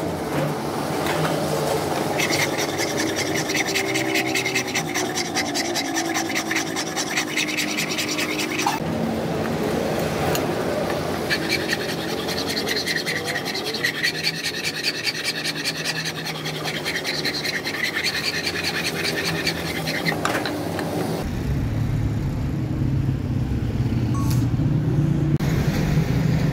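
Hand file rasping back and forth on a steel knife blade cut from a car suspension spring, which is clamped in a bench vise. The filing comes in two long bouts of rapid strokes with a short break between. Near the end the filing stops and a low, steady rumble takes over.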